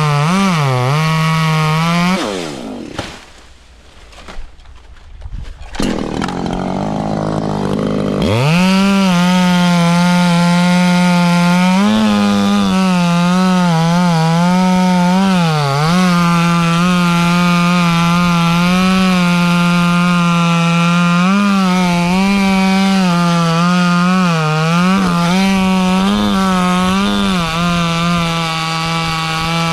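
Echo CS-3510 two-stroke chainsaw cutting wood at full throttle, its pitch dipping again and again as the chain bites into the cut. About two seconds in the revs and loudness drop away for a few seconds, then the saw climbs back up to full revs and keeps cutting.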